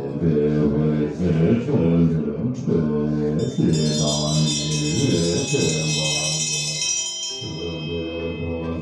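Tibetan Buddhist ritual chanting by a group of low voices, in long held phrases. From about three and a half seconds in, a high metallic ringing joins it and fades out after a few seconds.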